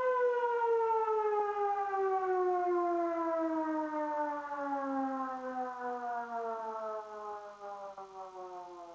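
Civil defence siren winding down: one long tone that slides steadily lower in pitch and fades away.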